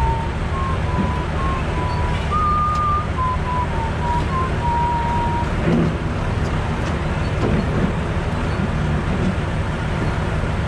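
Diesel engine of a John Deere 644C wheel loader running steadily as its forks lift a stripped car off a trailer.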